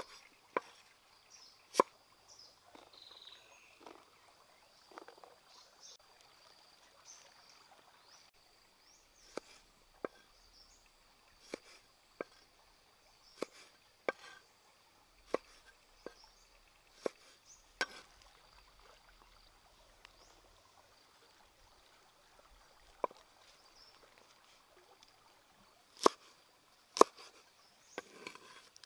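Cleaver blade chopping vegetables on a wooden chopping board: single sharp knocks about a second apart, with a short pause in the middle and the loudest strikes near the end. A faint steady high-pitched tone runs underneath.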